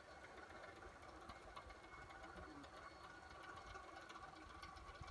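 Faint, steady whine of an electric ducted-fan model jet with a 75 mm fan flying high and far off, barely above the background hiss.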